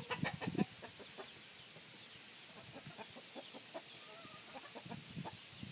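A flock of chickens clucking, with a quick run of louder clucks in the first second and then softer, scattered clucks and short calls.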